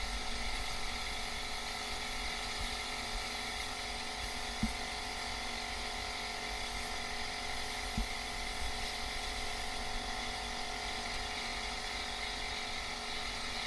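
Portable electric air compressor running steadily, a constant hum with a hiss over it. Two light knocks sound, about four and a half and eight seconds in.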